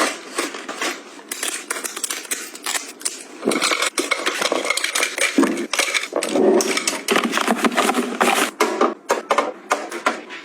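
Many quick clicks, taps and clatters of small hard objects being handled and set down, coming in rapid irregular succession.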